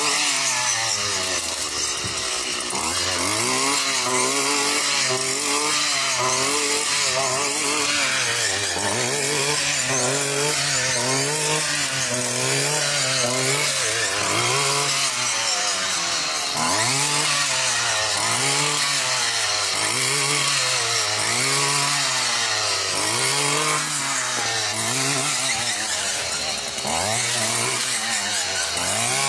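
Gas-powered brush cutter running at high throttle while cutting tall grass. Its engine pitch rises and falls over and over, about once every second or so, as the load comes and goes with each swing through the grass.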